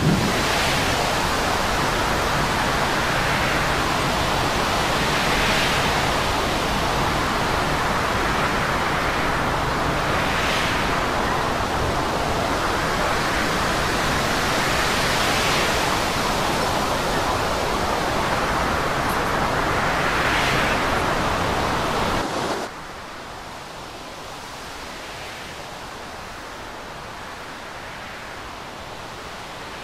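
Storm wind and heavy seas: a steady rushing hiss that swells every five seconds or so. It drops suddenly to a much quieter hiss about 22 seconds in.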